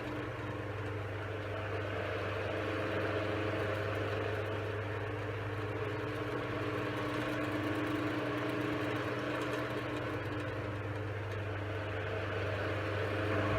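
Mid-century Knapp-Monarch Jack Frost 12-inch table fan running steadily on its low speed, an electric motor hum under the even rush of air from the blades. The fan still needs servicing: new fiber washers, cleaning and rebalanced blades.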